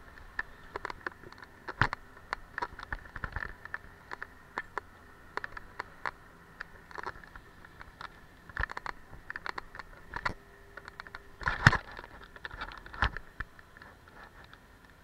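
Skis sliding and scraping over hard-packed snow, with scattered irregular clicks and knocks. The loudest knock comes about eleven and a half seconds in.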